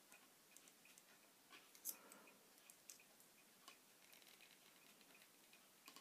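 Near silence with faint, irregular small clicks and ticks as small pliers grip and bend a thin, brittle metal windscreen-wiper insert strip; one click about two seconds in stands out.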